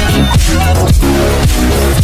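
Loud electronic music with heavy bass and a steady drum beat.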